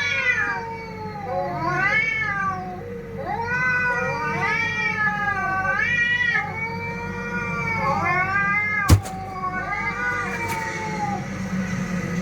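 Domestic cats meowing and yowling in long, wavering calls that rise and fall, some overlapping one another. A single sharp click about nine seconds in, over a steady low hum.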